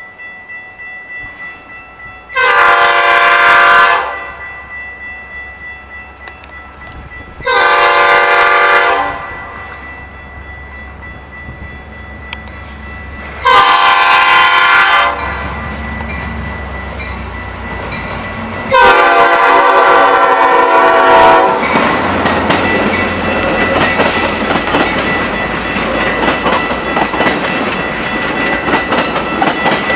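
Metra commuter train's diesel locomotive horn sounding four blasts for a grade crossing as it approaches, the last held longer. Then the train passes close by with loud wheel clatter and rumble from its bilevel coaches.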